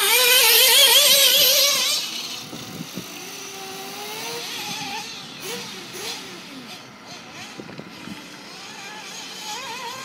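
An engine running with a quickly wavering pitch, loud for about the first two seconds and then much fainter, with faint distant voices.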